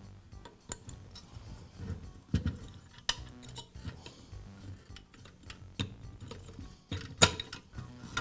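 Metal blower wheel of a bathroom vent-fan-heater being worked loose by hand from the motor shaft: scattered light metallic clicks and rattles of the wheel against its sheet-metal housing, with a few sharper clicks about seven seconds in.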